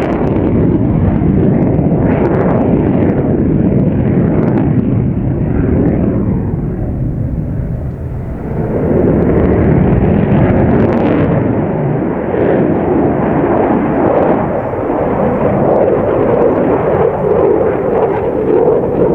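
Loud jet noise from an F-16 fighter's Pratt & Whitney F100 turbofan at low level, a deep rumbling that eases briefly about eight seconds in and then swells again.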